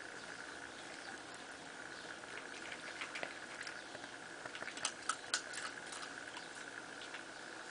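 Scuffling and clicking of a cat and a miniature pinscher play-wrestling: paws and claws patter and tap on the floor, with a quick cluster of sharp clicks about five seconds in. A steady high-pitched hum runs underneath.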